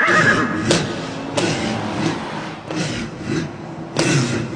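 A car driving fast through a street, its engine and tyres running, with a high wavering squeal fading out in the first half-second and a few sharp knocks, one near the end.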